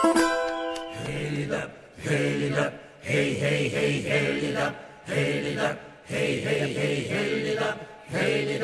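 Soundtrack music: a plucked-string tune ends about a second in, and a chanted vocal song in low voices takes over, sung in short repeated phrases about a second long.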